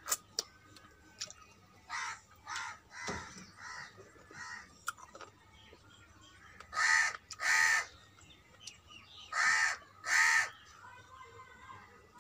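A crow cawing: two pairs of loud, harsh caws in the second half, with fainter calls earlier.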